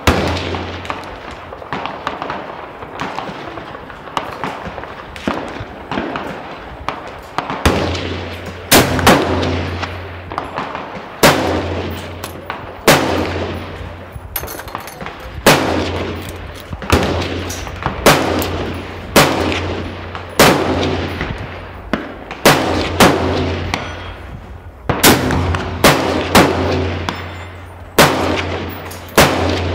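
Repeated gunshots at a shooting range, a sharp crack about every one to two seconds, each with an echoing tail. A low steady hum runs underneath from about eight seconds in.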